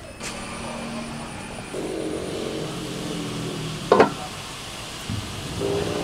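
An engine droning steadily in the background, getting louder about two seconds in, with one sharp knock about four seconds in.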